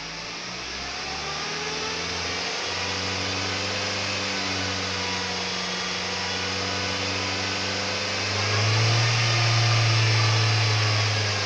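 SsangYong New Actyon engine running with the revs climbing gently, then holding, and louder for a few seconds near the end. Faint high-pitched whistling lies over the engine note, the whistle the owner cannot explain and says comes in from about 2300 rpm.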